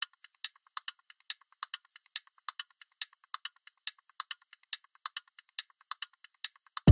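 Typing sound effect: rapid, irregular key clicks, about five or six a second, played as the on-screen caption types itself out.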